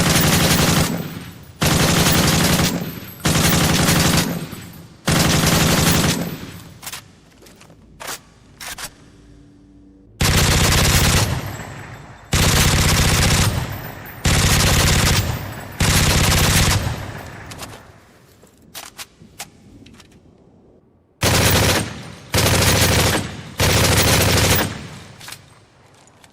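Automatic gunfire sound effect: short bursts of rapid fire about a second long, each with a fading echo tail, in three volleys of four, four and three bursts. A few faint clicks come between the volleys.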